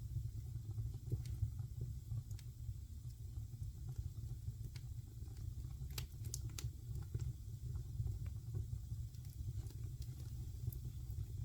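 Wood fire burning in a fireplace: a steady low rumble with scattered crackles and pops, a few sharper pops about six seconds in.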